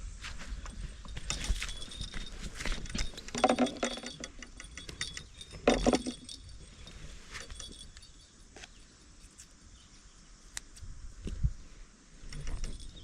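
Light clattering and clinking of handled objects, with two louder knocks about three and a half and six seconds in, then quieter scattered ticks.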